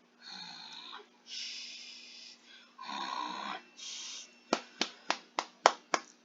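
Cartoon repair sound effects: four short rasping whooshes, then about seven quick sharp taps, about three a second, as a hammer knocks the floor tiles back into place.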